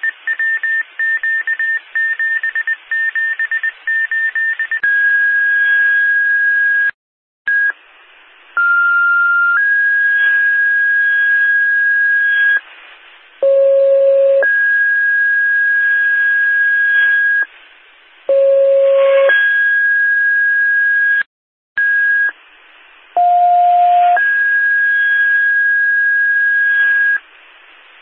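Fire dispatch alert tones over a scanner radio: a run of short rapid beeps, then a series of two-tone pages, each a short lower tone followed by a longer, higher held tone, with radio hiss between. These tones page out the fire companies just before a dwelling-fire dispatch.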